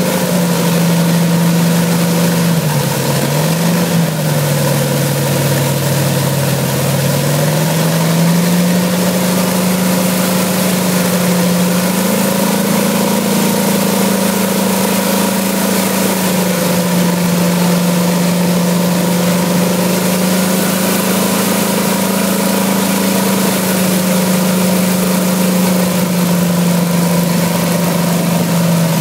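Radial aircraft engine running on a test stand. Its speed sags in the first few seconds, picks up about eight seconds in, then holds fairly steady with a few small rises and falls.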